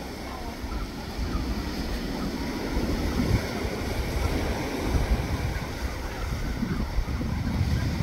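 Ocean surf washing against the shore, with gusty wind buffeting the microphone.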